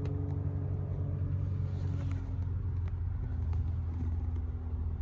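A vehicle engine running steadily at idle, a low even rumble with a faint steady hum above it.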